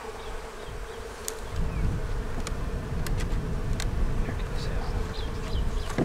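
Honeybees buzzing over an open hive, a steady hum. A few sharp clicks come between about one and four seconds in, and a low rumble rises from about a second and a half in.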